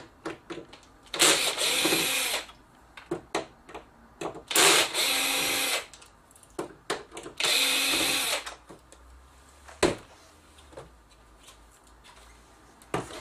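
Cordless electric screwdriver running three times, about a second each time, backing out the three screws that hold a TV stand. Small clicks and knocks of handling come between the runs, with one sharp click near the end.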